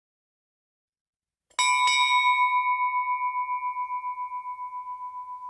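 A small bell struck about a second and a half in, with a light second tap right after, then ringing on one high tone that pulses as it slowly fades.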